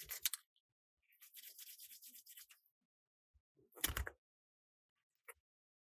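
Faint handling sounds: a few quick clicks, then a short run of light scratching strokes, a soft thump about four seconds in and one small click near the end.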